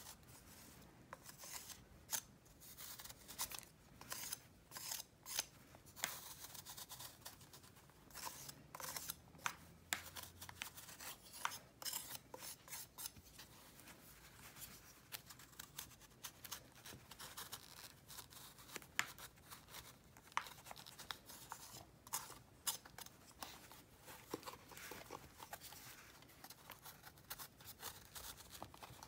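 Utility-knife blade shaving and crumbling a pressed block of crunchy powder: many quick, dry scraping and crackling strokes at an uneven pace.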